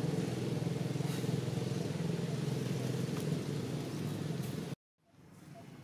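An engine running steadily with a low hum, which cuts off suddenly near the end, leaving only faint background.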